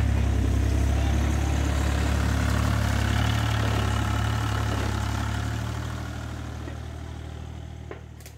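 Hitachi EX30 mini excavator's diesel engine running steadily with a deep, even hum, fading out over the last few seconds.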